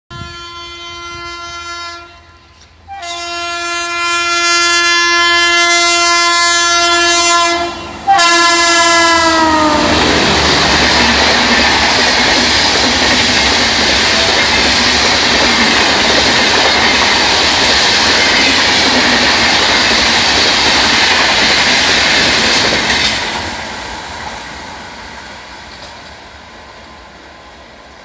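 High-pitched air horn of an ABB-built WAP-5 electric locomotive at speed, sounded in three blasts, the last one dropping in pitch as the locomotive passes. Then the steady rush and rattle of a 17-coach Rajdhani Express's wheels on the rails, which fades as the train moves away.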